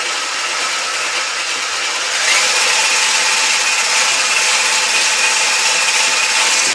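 Braun hand blender with its whisk attachment running in a stainless steel bowl, whisking flour, milk and baking powder into waffle batter. A steady motor whir that speeds up about two seconds in, getting louder with a higher whine, then cuts off suddenly at the end.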